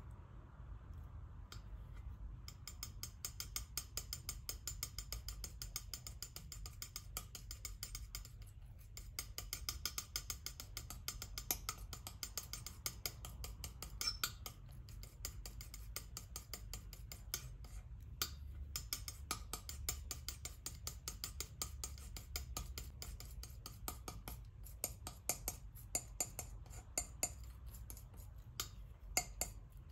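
Metal palette knife scraping, smearing and tapping through thick paint on a smooth surface: a dense run of quick, sticky scratches and clicks, broken by a few short pauses.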